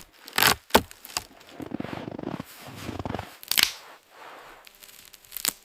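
Sticks and branches being snapped and broken, as for building a shelter: a handful of sharp, separate cracks with some rustling in between.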